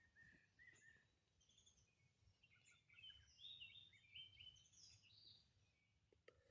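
Faint birdsong: a scatter of short chirps and whistled notes from several birds, busiest in the middle of the stretch.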